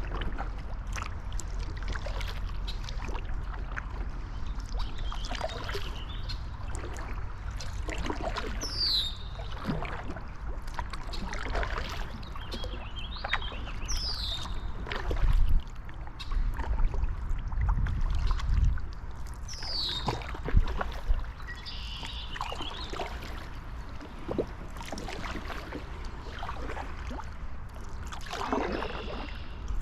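Kayak paddling: water splashing and dripping off the paddle with each stroke, over a low buffeting on the microphone that gets heavier in the middle. A bird gives a short falling call three or four times.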